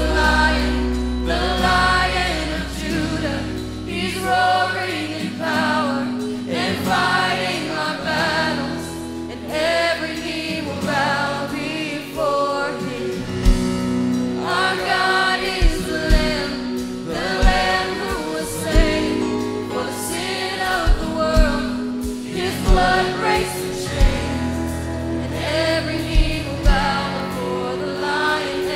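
Live worship band and youth choir singing a congregational worship song: a female lead vocalist with the choir over acoustic guitar, bass guitar and piano. A beat of low drum hits enters about halfway through and the music grows fuller.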